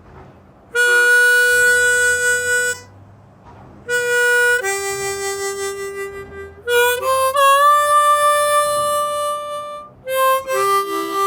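Blues harp (diatonic harmonica) playing clean single notes in short phrases. Some notes are held steady, others bend down in pitch and hold, and one note slides up about halfway through.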